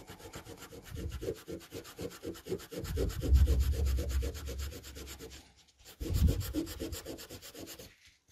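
Abrasive polishing pad scrubbed by hand over the bare die of a delidded CPU, rubbing off leftover solder and flux in quick back-and-forth strokes, several a second. The scrubbing pauses briefly past the middle, runs again for a couple of seconds, and stops near the end.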